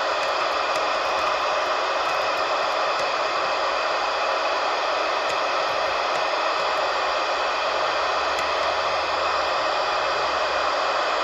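Steady hiss and static from a wideband radio receiver tuned to a weak, distant municipal disaster-prevention radio signal. A faint low hum comes in about eight seconds in.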